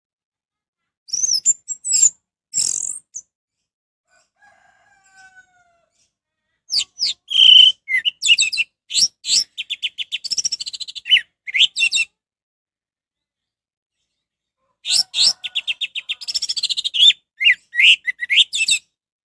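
Orange-headed thrush singing: a few short high notes, then two long runs of rapid, varied whistles and trills separated by pauses.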